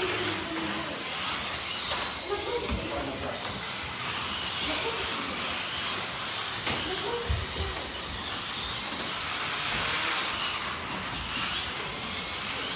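Electric slot cars running laps on the track: a steady whirring hiss of their small motors and tyres.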